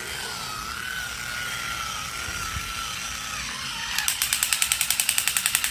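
Battery-powered toy: a faint wavering electronic tone fades over the first few seconds, then about four seconds in a rapid, even mechanical clicking starts.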